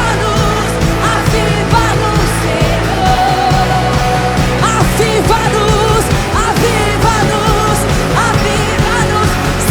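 Live worship band music with a steady drum beat and bass, and a voice singing long, wavering notes over it.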